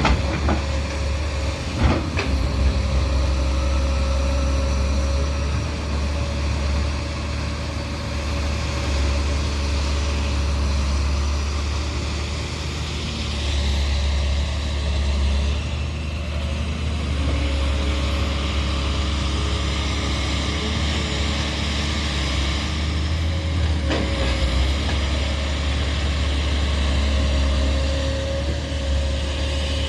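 Diesel engine of a Doosan 300 excavator running steadily under a deep rumble, with a faint steady whine and a couple of short knocks, one about two seconds in and one near the end.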